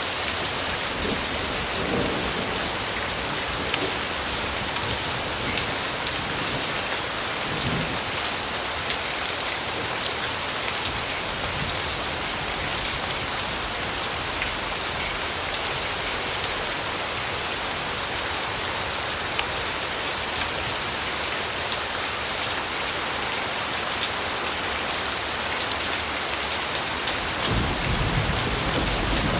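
Steady rain falling as a dense, even hiss, with low rumbles of thunder, a stronger one building near the end.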